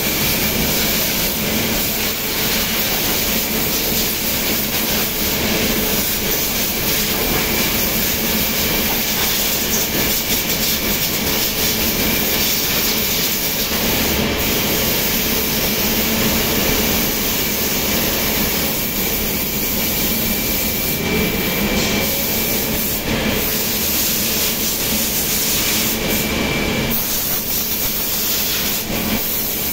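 Circular knitting machines running in a knitting mill: a loud, steady mechanical clatter and hiss with a faint constant whine. Near the end come a few short hisses of air from a compressed-air blow gun.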